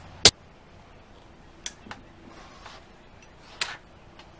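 Hammer striking the cap of a scythe peening jig once, about a quarter second in: a single sharp, loud blow, peening the blade's edge thin with the jig's number two cap. Then a few faint knocks and rustles as the steel blade is handled.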